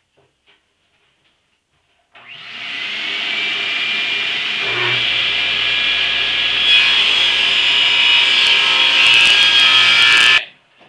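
Table saw starting up about two seconds in and ripping a thin strip, about 3/8 inch, off a pine 2x3 stud. The steady loud cutting noise stops suddenly near the end.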